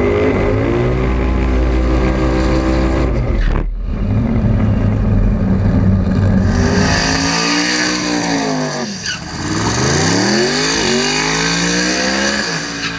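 Drag race car engines revving hard during burnouts: a steady high-rpm drone at first, then from about halfway the hiss of spinning rear tyres under engine pitch that swoops down and back up. The sound changes abruptly twice as it jumps from one car to another.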